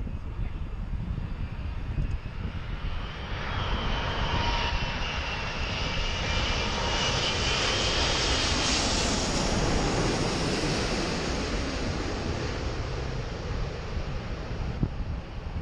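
Airbus A380's four jet engines passing low overhead on final approach. A high fan whine builds for a few seconds, then a broad jet roar peaks and fades away as the airliner passes.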